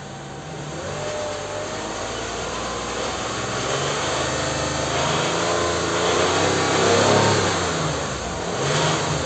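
Toyota 2GR-FKS 3.5 L V6 engine revved up from idle, the revs building over several seconds, then falling back, then rising again briefly near the end. The engine knocks under throttle, which the mechanic takes for connecting-rod knock from worn rod bearings, not a noisy hydraulic lifter.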